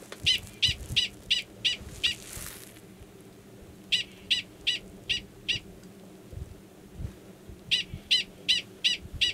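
Male Gunnison's prairie dog giving a mating call: three bouts of five or six sharp, high barks, about three a second, with pauses of about two seconds between bouts. The call sounds the same as its alarm call; here it is a male calling to an estrous female in a burrow nearby.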